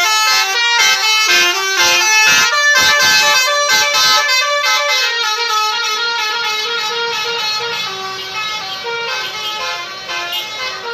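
Basuri multi-tone 'telolet' bus horn playing a melody of stepped notes, a quick run of short notes in the first half, then carrying on a little softer.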